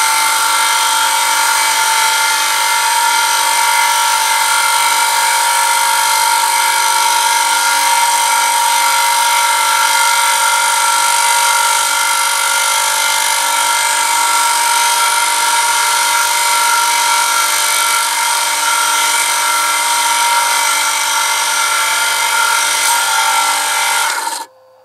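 Oil friction-test rig running under a 1 kg added load: a motor spins a ring against a spring-steel sample lubricated with two-stroke oil mixed 1:50 with petrol, giving a steady, high-pitched whine with several held tones. It cuts off abruptly near the end as the motor is stopped.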